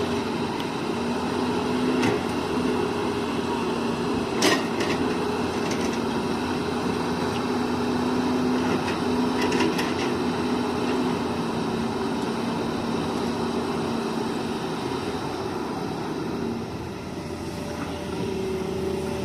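Hitachi hydraulic excavator's diesel engine running steadily with a pitched hum. A few sharp clanks come about two, four and a half, and nine and a half seconds in, and the engine sound eases briefly near the end.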